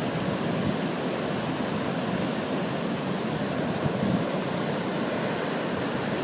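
Pacific Ocean surf breaking and washing up the beach: a steady, even rushing noise.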